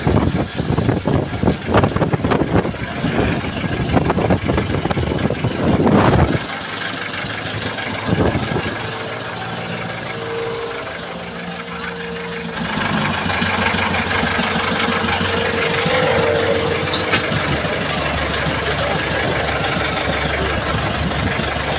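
Waves slamming against a motorized outrigger fishing boat in rough seas, spray crashing over the deck, with strong wind on the microphone over the boat's running engine. About six seconds in the crashing stops and the engine's steady hum is heard muffled, as if from inside the cabin. Wind and water noise rise again about halfway through.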